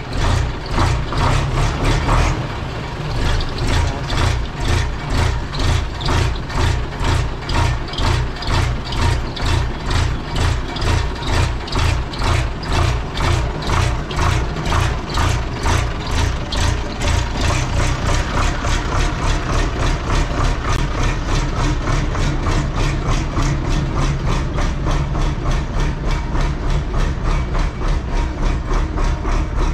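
Schlüter Super 1250 VL tractor's diesel engine idling with an even, pulsing beat, just after starting; it runs a little louder for the first couple of seconds, then settles.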